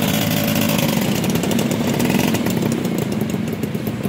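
Yamaha V80's small two-stroke single-cylinder engine running with a buzzy, rapid firing note, its speed rising and falling a little in the first couple of seconds. Other small motorcycle engines run alongside.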